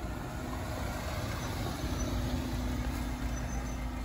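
Steady low vehicle rumble with a faint steady hum, growing a little louder in the middle.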